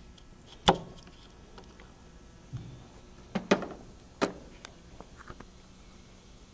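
Hand crimping tool closing on a wire terminal, with handling of the tool and the wire: a few sharp clicks, one under a second in and three more close together around the middle.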